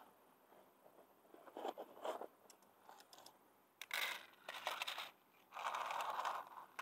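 Rustling and crinkling from handling a bag of dry cat food, and dry kibble rattling into a clear plastic tray, in several short bursts, the longest about six seconds in.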